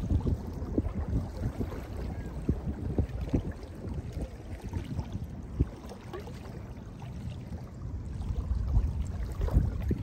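Small lake waves lapping onto a sandy beach: a run of soft splashes and trickles, quieter in the middle and building again near the end as the next wave washes in.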